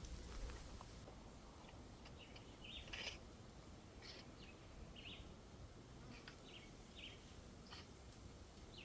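Faint, scattered short bird chirps over quiet outdoor background.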